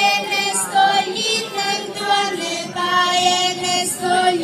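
A chorus of children's and women's voices singing a traditional Arbëresh valle dance song, in long held notes that slide from one to the next.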